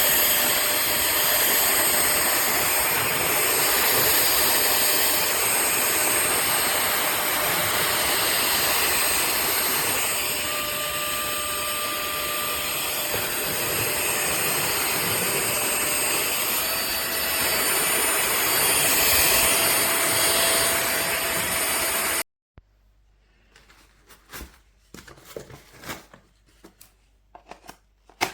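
Tiazhan handheld vacuum cleaner's small high-speed motor running steadily with a rush of air and a faint high whine. It cuts off suddenly about 22 seconds in, leaving faint clicks and handling noise.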